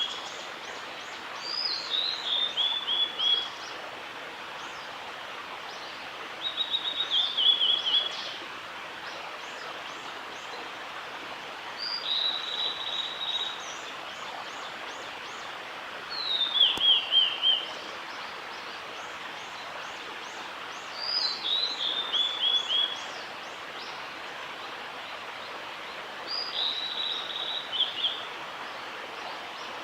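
Male blue-and-white flycatcher singing: about six short phrases, one every four or five seconds, each a high falling whistle that ends in a quick run of repeated notes, over a steady background hiss.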